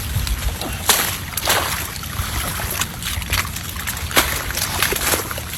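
Water sloshing and splashing, with several sharp splashes.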